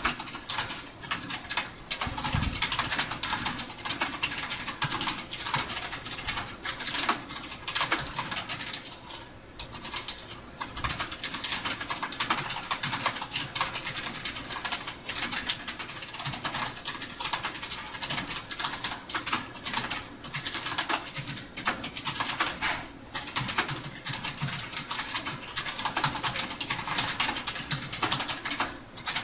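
Fast continuous touch-typing on a UtechSmart Saturn backlit gaming keyboard, a non-mechanical keyboard: a dense stream of key clicks with a brief let-up about nine seconds in.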